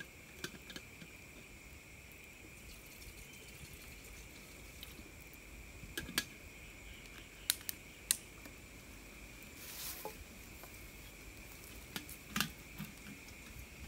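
Steady high-pitched chirring of forest insects at dusk, with scattered sharp clicks and knocks from the campfire and from sticks and a kettle being handled beside it, the loudest a few seconds past the middle and near the end.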